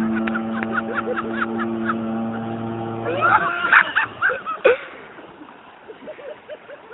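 Jet ski engine running at a steady drone that drops away about three and a half seconds in, with many short high cries over it.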